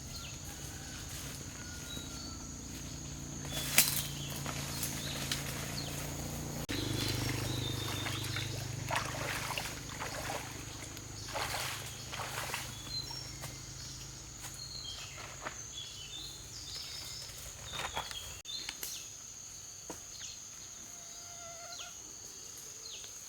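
Forest ambience: a steady high-pitched insect drone with scattered bird chirps and occasional clicks. A low hum runs underneath and stops about 18 seconds in.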